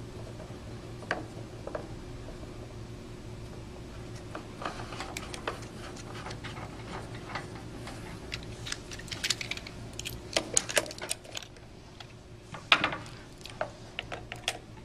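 Small metal clicks and clinks as metal air fittings are threaded into a plastic diaphragm pump's air inlet and an air-hose coupling is handled and fitted. The clicks grow more frequent after a few seconds and are loudest near the end, over a steady low hum.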